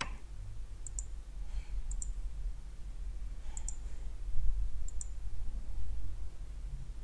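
Computer mouse clicking: four short, sharp clicks spread over several seconds, over a low steady hum.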